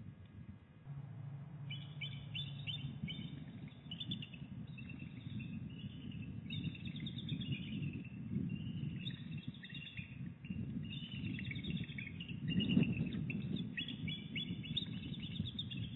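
Bald eagles calling off-camera: repeated rapid series of high, thin chirping notes, over a low rumble that swells briefly near the end.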